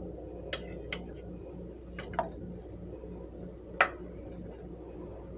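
A few light, irregular clicks and taps from hands handling shredded lettuce and plates while arranging a salad, the loudest near four seconds in, over a faint steady low hum.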